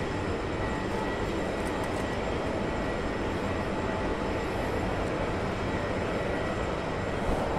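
Steady roar of a fertilizer plant's machinery, with a faint high whine over it.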